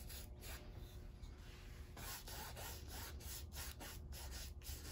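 Paintbrush stroking white acrylic paint across a canvas: a faint, uneven brushing noise, stroke after stroke.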